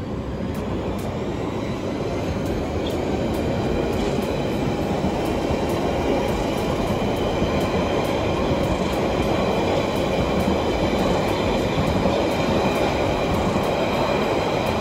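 London Underground Central line train pulling away from the platform and running past close by: a rumble of wheels on rail that grows louder over the first few seconds, with a high electric whine of several steady tones over it.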